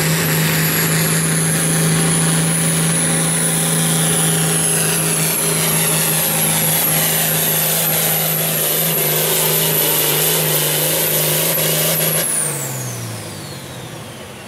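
International Harvester pulling tractor's turbocharged diesel engine running flat out under load while it drags the weight sled, with a high steady turbo whistle over the engine. About twelve seconds in, the throttle is released: the engine drops off and the whistle falls away in pitch as the turbo spools down at the end of the pull.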